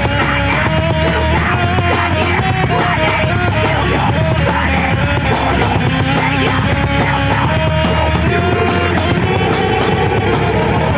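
A live heavy metal band playing loud and steady: distorted electric guitars, bass and pounding drums with fast repeated cymbal and snare hits.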